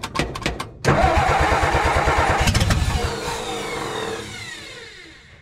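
1962 Ford F600's inline-six being cranked by the starter, catching about a second in and running fast. From about halfway its revs fall away and it fades out near the end, as if dying. This is a start on gasoline from the tank after the carburetor float was reset.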